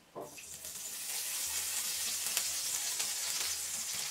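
Cooking oil poured into a hot nonstick frying pan, sizzling. The sizzle starts just after the pour begins and then holds steady.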